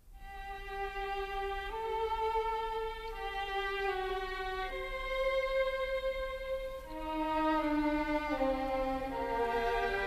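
Background music of bowed strings led by a violin, playing held notes that change about once a second; it rises in over the first couple of seconds.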